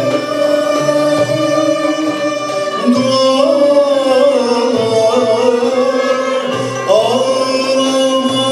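A male solo voice sings a Turkish art music song with an instrumental ensemble that includes violins. The voice holds long notes with wavering, ornamented turns.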